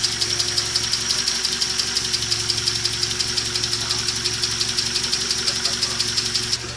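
Saab 900 Turbo 16's 2.0-litre turbocharged 16-valve four-cylinder engine idling, heard close over the engine with a rapid, even ticking on top of the steady engine note. Near the end the ticking stops and the sound turns quieter and steadier as it is heard from under the car along the stainless steel exhaust.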